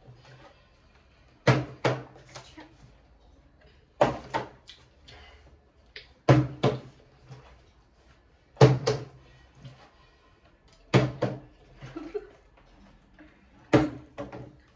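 A partly filled plastic water bottle being flipped and landing on a table again and again: about six sharp knocks, roughly every two seconds, each landing followed quickly by a second knock as the bottle bounces.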